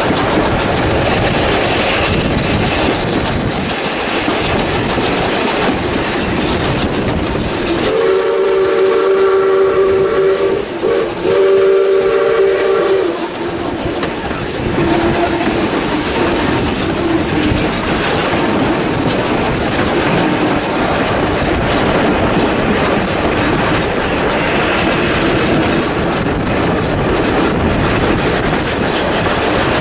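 Steady running noise of a steam-hauled wooden passenger carriage in motion, heard from an open window: wheels clattering on the rails, with wind. About eight seconds in, steam locomotive 621 sounds its chime whistle: two long blasts back to back, the first about two and a half seconds and the second about two seconds.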